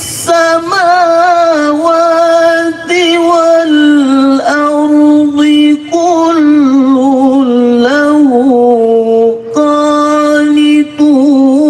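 A man reciting the Quran in the melodic tilawah style into a microphone. He sings long, drawn-out notes with wavering ornaments that rise and fall, broken by a few brief pauses.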